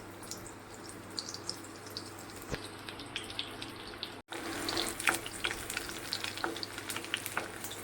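Onions frying in a little hot oil in a pan: a steady sizzle with many small crackles and pops. The sizzle cuts out for an instant about four seconds in and comes back a little louder.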